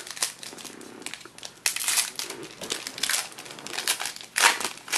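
A trading-card pack wrapper crinkling and rustling as it is handled and torn open. The crackling comes in uneven bursts, loudest about two seconds in and again near the end.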